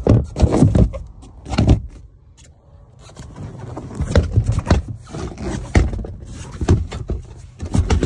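Handling noise: the phone's microphone rubbing and bumping against the boat's surfaces as it is moved, in loud, uneven bursts every half second to a second with a short lull about two seconds in.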